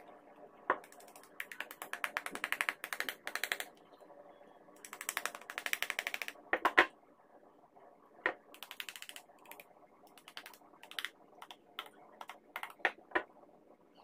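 Thin plastic tub crackling and clicking in fast runs as a putty knife pries at its rim and flexes it. In the second half come separate sharper clicks as fingers work the rim.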